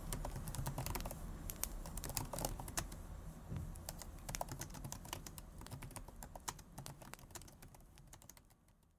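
Typing on a computer keyboard: quick, irregular key clicks over a low background hum, fading out steadily to nothing near the end.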